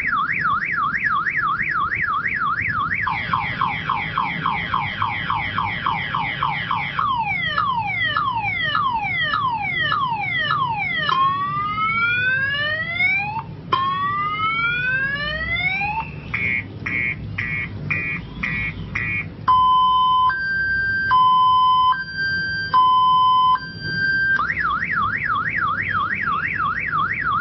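Electronic multi-tone siren cycling through its sounds: a fast warble, a rapid yelp, falling chirps, slow rising sweeps, quick beeps and a two-tone hi-lo, then back to the warble near the end.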